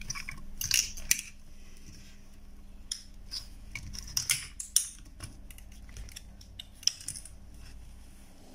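Scattered light clicks and clatter of a switch-mode power supply's circuit boards and metal chassis being handled and pulled apart by hand.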